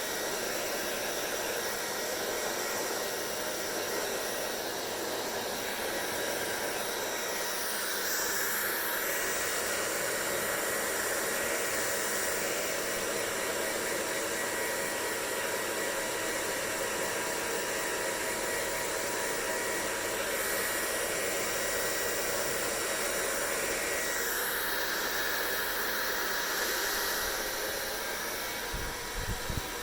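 Hair dryer blowing steadily: a continuous rush of air with a thin motor whine running through it. The airflow's tone shifts brighter about eight seconds in and again near twenty-four seconds, and there are a few low bumps at the very end.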